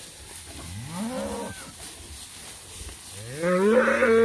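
Cattle mooing: a short moo rising in pitch about a second in, then a longer, louder moo near the end that rises and holds its pitch.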